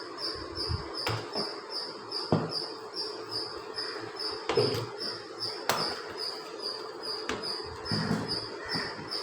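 An insect chirping steadily, a high chirp repeating about three times a second, with a few sharp knocks and clatters among it.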